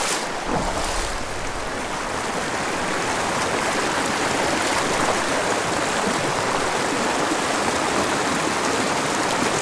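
Small, shallow mountain stream flowing steadily over rocks and through riffles, an even, constant rush of water.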